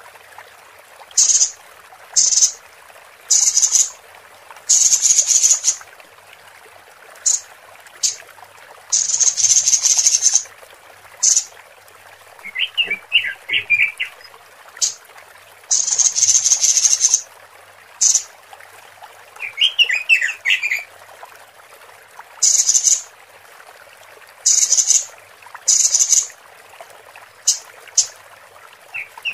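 Female Pekin robin (red-billed leiothrix) calling, the lure call used to draw male robins: short, high, buzzy calls repeated every second or two, some held for about a second, with a few brief warbled phrases, over a steady background hiss.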